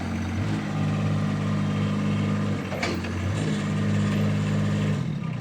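1.5-ton mini excavator's engine running, its note stepping up about half a second in, dropping a little past halfway, rising again and dropping near the end. A sharp click about three seconds in.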